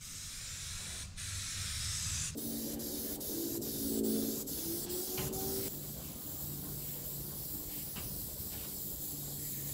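Aerosol can of self-etch primer spraying in long passes with a steady hiss and a couple of brief breaks. A low steady hum joins about two and a half seconds in.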